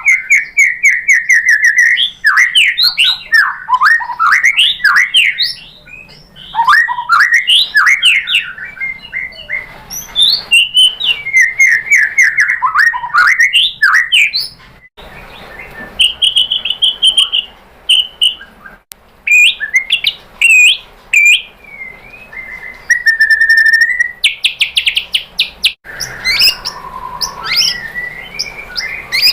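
White-rumped shama singing a loud, rapid and varied song of quick sweeping notes, trills, clear whistles and a buzzy rattle, breaking off abruptly a few times.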